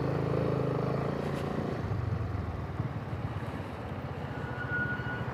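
Voge SR4 Max scooter running while the brakes are applied. Its engine note drops away after about a second and a half, and near the end a thin, steady, high-pitched brake squeal sounds for about a second. This is the abnormal brake noise the owner calls ear-piercing.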